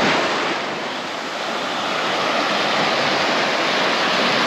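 Sea surf washing onto a beach: a steady rushing wash of waves that eases a little about a second in and builds again.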